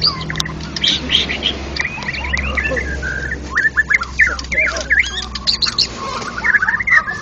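White-rumped shama (murai batu) singing continuously: quick runs of varied whistles, glides and chattering notes, with other songbirds' phrases overlapping.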